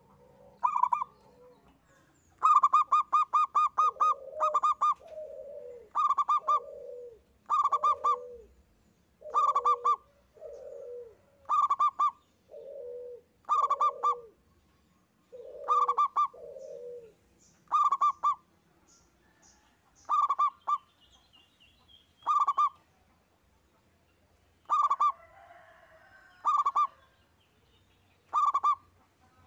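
Zebra dove (perkutut) singing: repeated phrases of rapid stuttering coo notes about every one and a half to two seconds. In the first half each phrase trails off into lower, rounder coos; later phrases are shorter and higher only.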